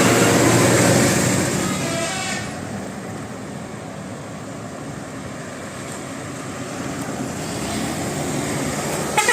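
A bus passing close by on the road. It is loud for the first two seconds or so, then fades to a steady traffic hiss that builds again near the end as another vehicle approaches.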